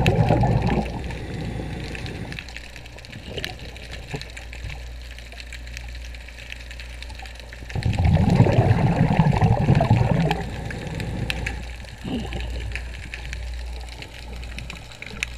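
A diver's exhaled breath bubbling out of a regulator underwater, close to the microphone. There are two big gurgling bursts, one at the start and a longer one about eight seconds in, with smaller bubbles between, over a low steady hum.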